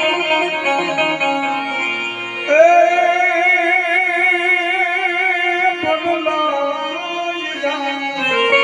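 Devotional folk music: singing over instruments, with one long wavering held note in the middle.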